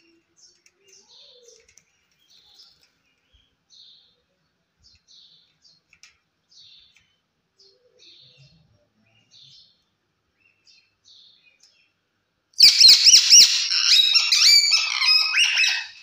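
Rose-ringed (Indian ringneck) parakeet calling: soft chirps about once a second, then, about twelve and a half seconds in, a loud run of shrill, wavering screeches lasting about three seconds.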